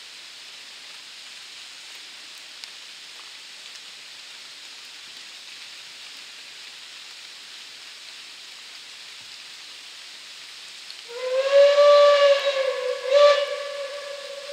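Steam locomotive whistle sounding as the train nears an unguarded level crossing, where trains must whistle. After a steady background hiss, one long blast starts sharply about eleven seconds in, swells again about two seconds later, then holds on more quietly.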